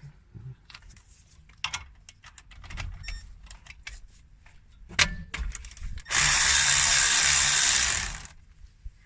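Ratchet clicking and tool clinks while the brake caliper bolts are cracked loose. There is a sharp knock about five seconds in, then a loud steady power-tool run lasting about two seconds.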